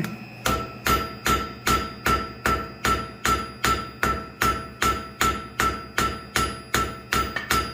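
Hand hammer striking red-hot steel on an anvil in an even rhythm, about two and a half blows a second, each blow ringing briefly: drawing out the wings of a forged dragonfly.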